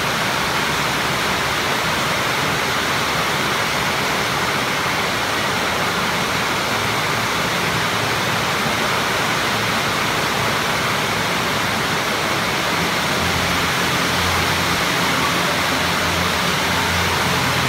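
Steady, loud rushing noise without pauses. A low steady hum joins about thirteen seconds in.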